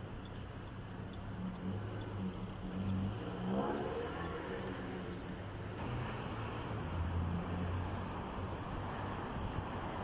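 City street traffic: a steady hum of cars, with one vehicle passing close about four seconds in.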